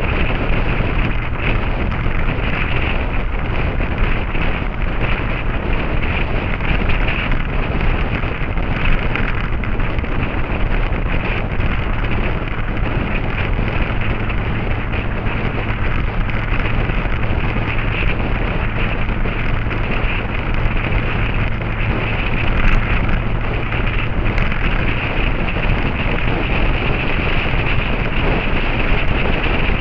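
Heavy wind buffeting on the microphone of a camera carried on a motorcycle at speed, with the engine's steady drone underneath.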